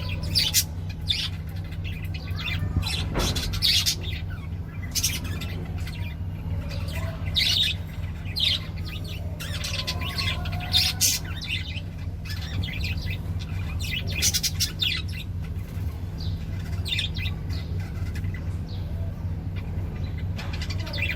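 Small birds chirping and squawking in short, scattered calls over a steady low hum.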